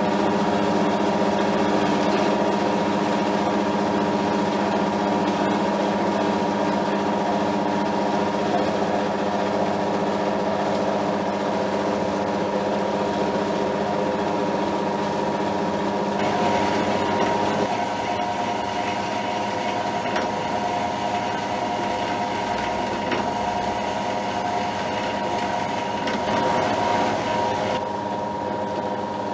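Metal-cutting bandsaw running with a steady motor hum while its coarse-tooth blade is fed slowly down through a metal bracket blank. The cutting sound changes about two-thirds of the way through and thins near the end as the blade comes through the piece.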